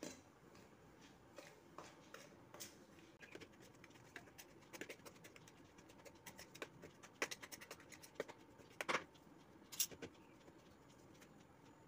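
Hands mixing wheat flour in a stainless steel plate: faint scratching and rustling with many scattered light clicks against the metal, more of them and louder in the second half.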